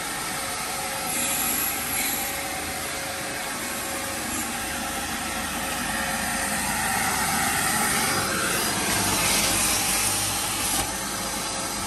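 Wet-and-dry vacuum cleaner running: a steady motor whine under rushing air. It grows louder and hissier for a couple of seconds past the middle, as it sucks up gunk.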